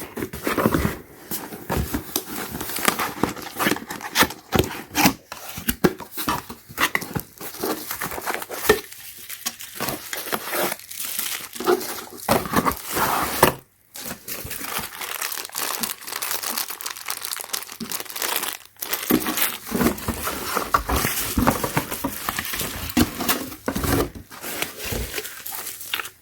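Product packaging being opened and handled: crinkling and tearing in irregular, crackly bursts, with a short break about halfway.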